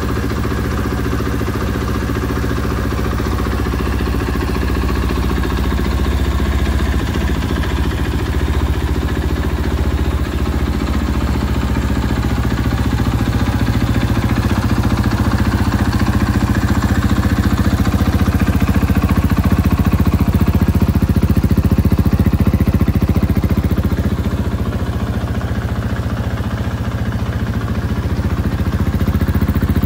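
KTM 500 EXC single-cylinder four-stroke engine idling steadily.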